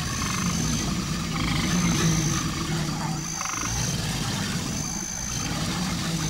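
Male American alligator bellowing: a deep, rumbling call that breaks off briefly about halfway through and then resumes.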